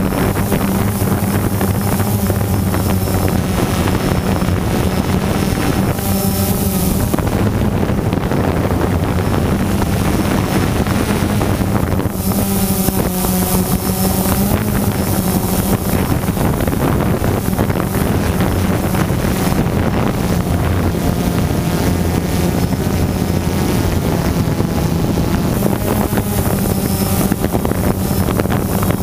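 DJI quadcopter's electric motors and propellers buzzing steadily, heard from the camera mounted on the drone itself, with wind on the microphone. The pitch shifts a few seconds in and again near the middle as the drone climbs and manoeuvres.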